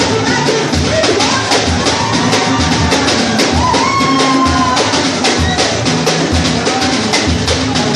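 Batucada drum group playing: deep bass drum beats under a dense, fast stream of snare and hand-percussion strikes.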